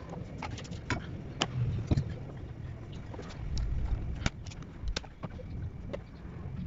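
Scattered sharp clicks and knocks of tools and hands working on an amplified speaker's circuit board with a desoldering pump and soldering iron, over a steady low rumble.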